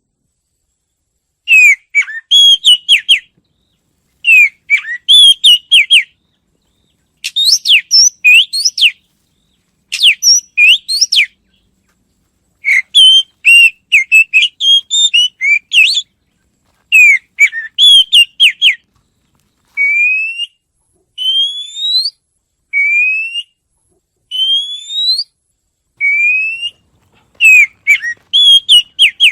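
A songbird singing in short phrases of quick, clear whistled notes, separated by pauses. Partway through it switches to single rising whistles, about one every second and a half, then returns to a quick phrase near the end.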